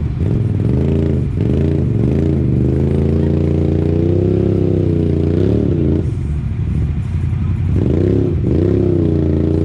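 Side-by-side UTV engine revving up and down over and over as it is driven off-road. The revs drop lower about six seconds in and climb again near the end.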